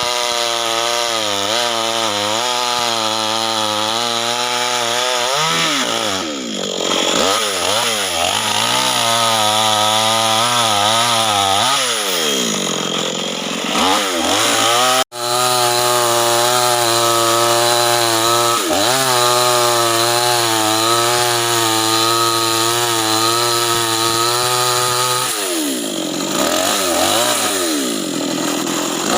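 Two-stroke chainsaw cutting acacia wood, running at high revs, its pitch sagging and recovering again and again as the chain loads up in the cut. The sound cuts out for an instant about halfway through.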